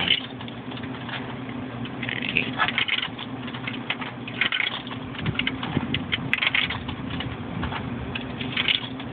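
Coins being fed one after another into a vending machine's coin slot, clinking in several short bursts, over a steady low hum.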